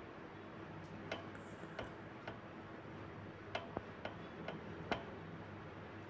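Faint, irregular light clicks and taps of a Honda Activa's kick-start lever and centre stand being moved by hand, checking whether the stand strikes the kick lever, a common source of rattle on these scooters.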